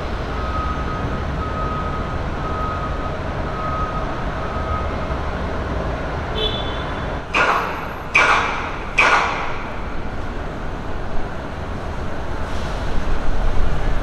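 Steady traffic and site rumble with faint repeated beeping in the first few seconds, then three loud bangs a little under a second apart, each ringing out briefly, from the steel-frame station construction.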